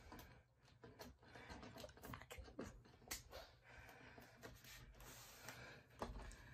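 Near silence: room tone with faint, scattered small clicks and taps.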